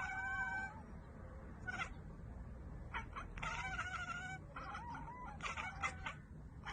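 A cat meowing and yowling in several separate calls with wavering pitch. The longest comes about halfway through.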